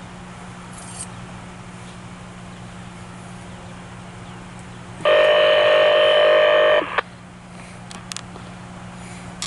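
A loud, buzzy electronic tone from a railroad radio scanner, starting sharply about five seconds in and cutting off about two seconds later, over a steady low hum.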